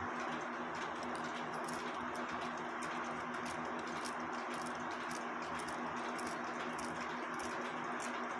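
One-day cuckoo clock movement ticking lightly, about two faint clicks a second, over a steady background hum.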